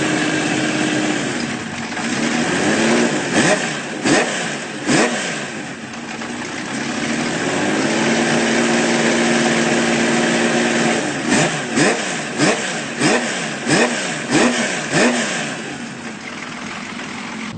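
Honda CBX 1050's air-cooled inline six-cylinder engine being revved. It is held at a steady speed at times, with several sharp rises and falls in between, then a quick run of throttle blips near the end.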